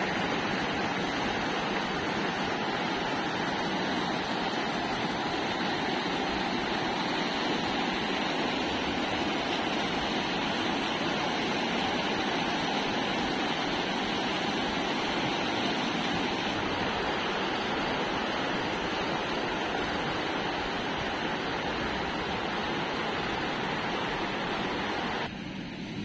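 Shallow, fast mountain stream rushing over rocks and rapids: a steady rush of white water that falls quieter about a second before the end.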